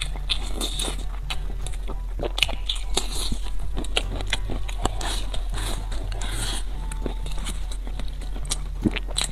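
Wet chewing and mouth smacks with a busy run of small irregular clicks, as a man eats braised pork belly, rice and soft stewed starch noodles.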